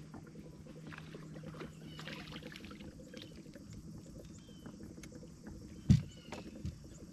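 Small ticks and light water sounds as a small crappie is reeled in on a rod and lifted out of the water. A low hum runs for the first couple of seconds, with a few short bird chirps. A sharp thump comes about six seconds in, with a smaller one just after.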